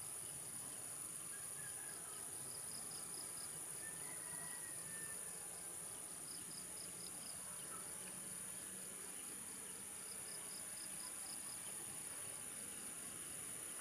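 Insects chirping in regular pulsed trills, group after group, over a steady high-pitched whine.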